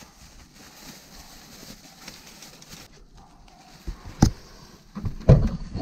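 Plastic bags and paper rustling as they are handled, then a few sharp knocks and thumps about four and five seconds in.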